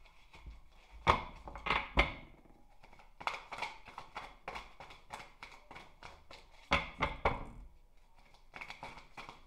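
A deck of tarot cards being shuffled by hand: a run of soft card slaps and clicks, with a few louder knocks about a second in, a second later, and again about two-thirds of the way through.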